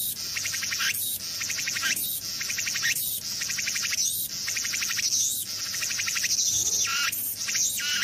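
Cicada calling: a loud rasping buzz in phrases of about a second, each cut by a short break. Near the end the phrases shorten and come faster.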